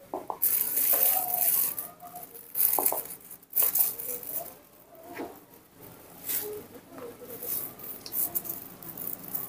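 A thin plastic bag crinkling and rustling in repeated bursts as a baby monkey rummages in it, with a few light knocks.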